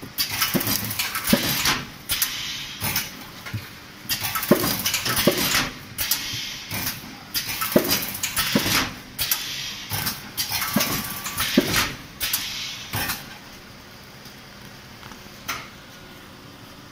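BSF 5545LE automatic L-bar shrink-wrap sealer running through its cycle, a dense run of mechanical clacks and knocks for about thirteen seconds. It then settles to a steady low background noise, with one more knock near the end.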